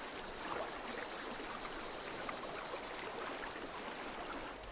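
Outdoor river ambience: a steady hiss of flowing water, with a high, thin chirp repeated in quick little groups about twice a second.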